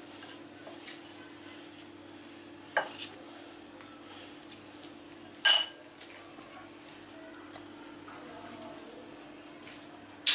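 Hands stuffing whole mullet with a chopped herb-and-tomato filling: quiet handling and a few sharp clicks against the dishes, the loudest about five and a half seconds in, over a steady low hum.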